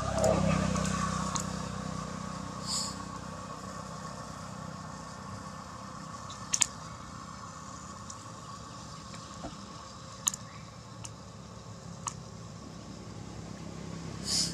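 A motorbike passes on the road, its engine loudest at the start and fading away over the next few seconds, leaving a low steady hum. A few sharp clicks come about six, ten and twelve seconds in.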